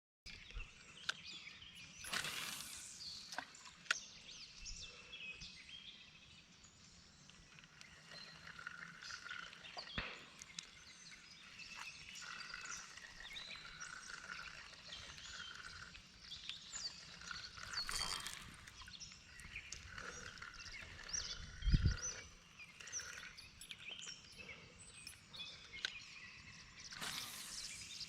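Birds chirping and calling over a quiet outdoor background, with three brief swishes and a low thump about two-thirds of the way through.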